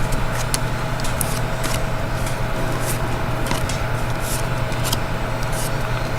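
Light crinkling and ticking of a trading-card pack and cards being handled, scattered irregularly over a steady low hum.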